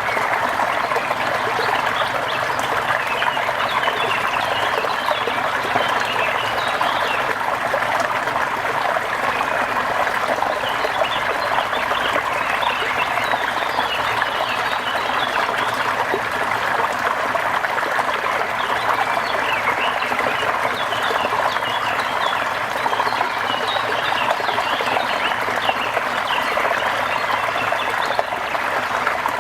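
Steady rain: a dense, even patter with trickling water, holding the same level throughout.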